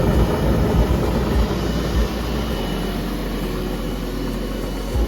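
HGSF-600 garlic splitter and clove sorter running, a steady mechanical noise with a faint high tone, and irregular low thumps during the first two seconds.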